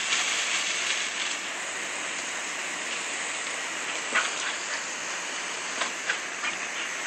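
Steady hiss of a garden hose spraying water, with a few brief, sharp spatters around the middle and late part as the dog leaps into the spray.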